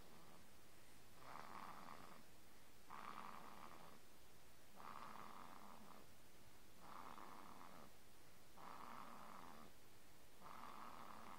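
Faint, steady snoring: six rasping snores, one about every two seconds, with quiet breaths between them.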